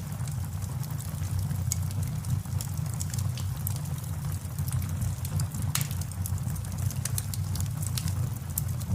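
Wood fire burning in a fireplace: a steady low rumble of the flames with many sharp, irregular crackles and pops.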